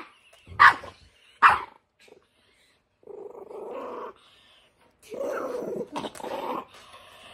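Two dogs play-fighting face to face: two short sharp barks or yips in the first second and a half, then stretches of sustained rough growling.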